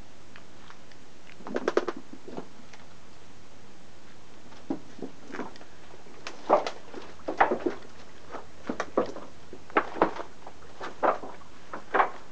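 Footsteps on a leaf-littered bush track: a run of short, irregular crackles and knocks, some in quick clusters, with the loudest between about six and eight seconds in and near the end.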